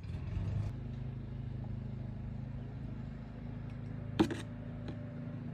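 A steady low engine hum, like a vehicle idling, starting abruptly, with one sharp knock about four seconds in.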